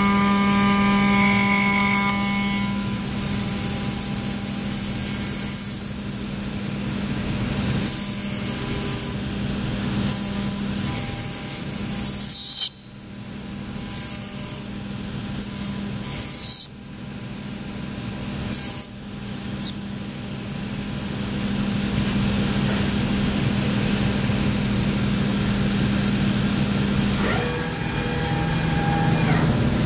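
5-axis CNC milling machine cutting: a steady spindle hum and whine with the noise of the cutter working through the material. Its pitch shifts now and then, and the sound drops away suddenly twice, about 13 and 17 seconds in.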